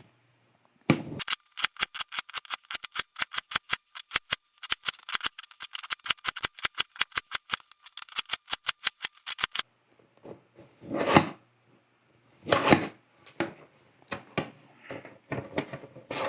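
Plastic layers of a 21x21 Rubik's cube clacking as they are turned, in a fast, even run of sharp clicks of about six a second. About ten seconds in this gives way to a few scattered, duller handling knocks.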